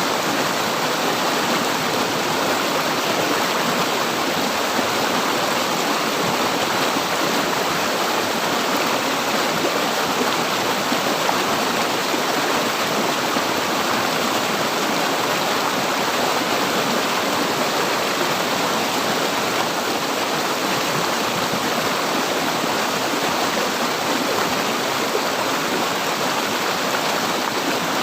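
River water flowing, a steady rushing babble with no breaks or changes.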